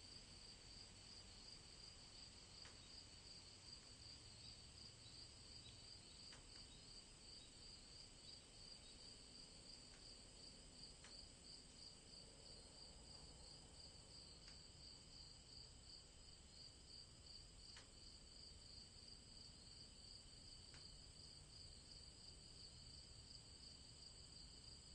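Faint, steady chirping of crickets: a fast, evenly pulsing trill that never stops, with a few soft ticks scattered through it.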